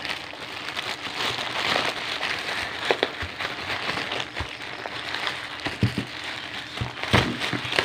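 Black plastic courier pouch crinkling and rustling as hands pull it open, with a few short knocks.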